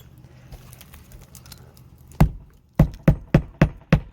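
Hammer blows on a shingled roof: a run of sharp, quick knocks, about three a second, starting about halfway through.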